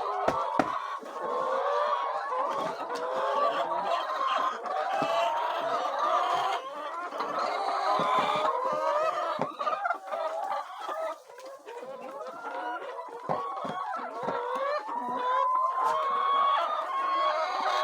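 A flock of chickens clucking and calling, many short overlapping calls throughout, with one longer drawn-out call near the end.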